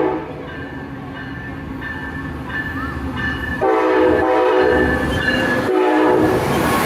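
Passenger locomotive's multi-chime air horn sounding in blasts as the train comes in. One blast ends right at the start, a longer one begins about three and a half seconds in, and a short one comes near the end, all over the steady rumble of the moving train.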